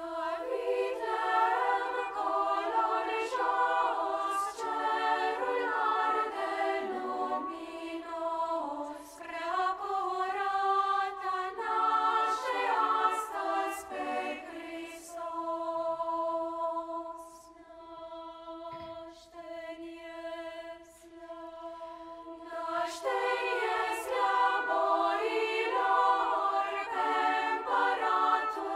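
Children's choir singing a Romanian Christmas carol in several voice parts. It goes softer about two-thirds of the way through, then swells back to full voice near the end.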